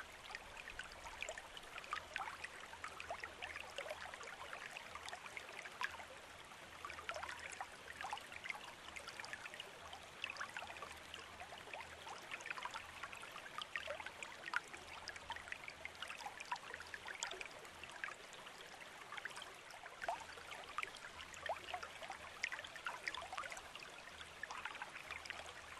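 Water trickling and babbling steadily and faintly, like a small stream.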